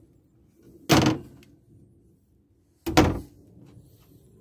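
Two wooden closet cabinet doors in a motorhome swung shut one after the other, each closing with a sharp knock, about two seconds apart.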